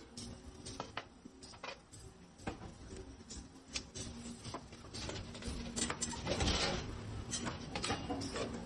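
Light, irregular clicks and taps of hand tools working galvanized sheet metal, with a louder scraping rasp about six seconds in and a faint steady hum underneath.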